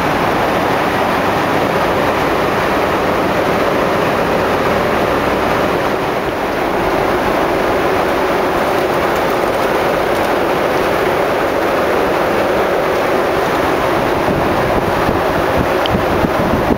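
Steady rush of airflow and engine noise inside a Boeing 747's cabin in cruise flight.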